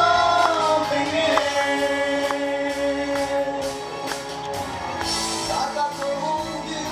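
A vocal trio of two men and a woman singing through microphones over musical accompaniment. A held sung note at the start gives way to the accompaniment alone, and singing comes back near the end.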